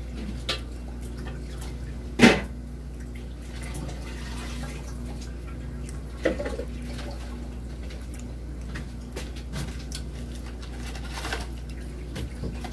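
Kitchen work sounds over a steady low hum: a few sharp knocks of dishes or utensils at the counter, the loudest about two seconds in, with faint water-like sounds from the sink.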